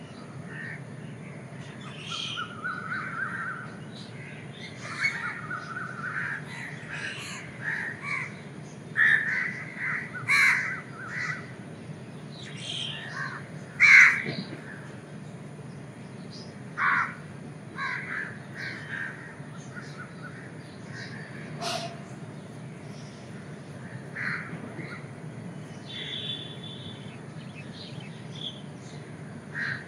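Birds calling many times in short, separate calls, some louder and nearer than others, over a steady low background hum.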